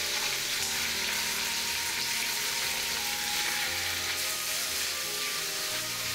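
Thin slices of raw beef sizzling steadily as they fry in hot vegetable oil in a nonstick wok.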